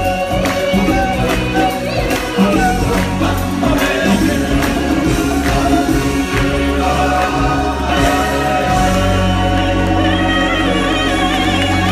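Live stage-show music with a group of voices singing over the band and percussion, heard from the audience seats; a steady deep bass note comes in about nine seconds in.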